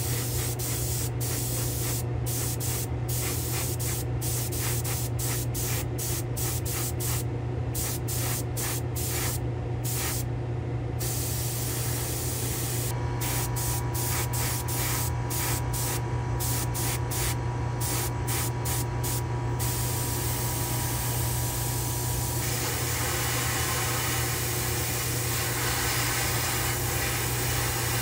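Airbrush spraying paint in short trigger bursts: the air hiss cuts in and out many times in quick succession, then runs more steadily near the end. A steady low hum runs underneath.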